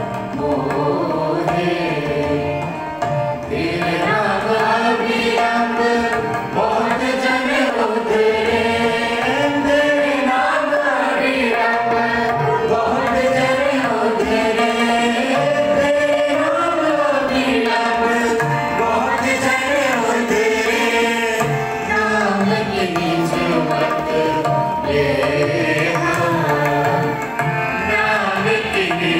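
Sikh kirtan: voices singing a Gurbani hymn over a harmonium, with a tabla keeping the rhythm.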